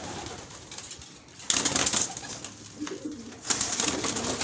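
Racing pigeons cooing, with two loud bursts of wing-flapping, about a second and a half in and again about three and a half seconds in.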